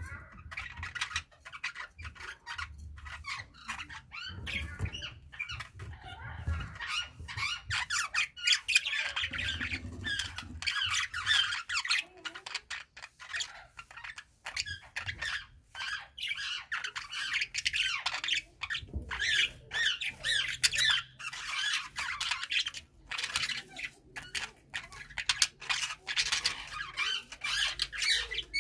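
Budgerigars chattering and warbling continuously, a dense stream of quick chirps and squawks from more than one bird.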